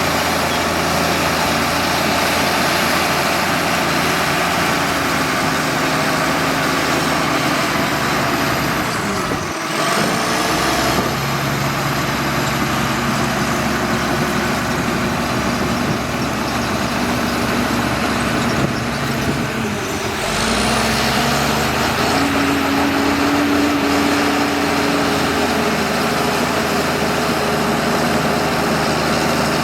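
Bulldozer's diesel engine running steadily at working load, with brief dips in level about a third and two thirds of the way through.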